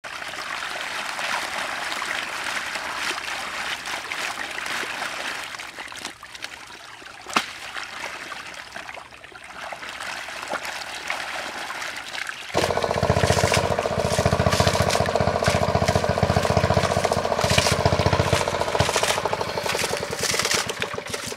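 Muddy water sloshing and trickling as hands work a basket of eels and climbing perch through shallow pond mud, with one sharp click partway through. About halfway through, a loud steady engine drone cuts in abruptly and keeps running.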